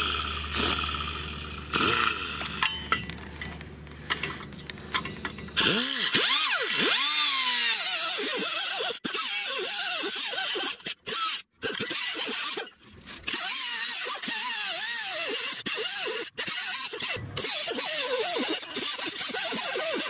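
First a steady low hum with a few clicks. Then, from about six seconds in, an abrasive cutoff wheel grinds through the overlong threaded end of a steel leaf-spring U-bolt, its whine rising and falling as it bites, with a few brief gaps.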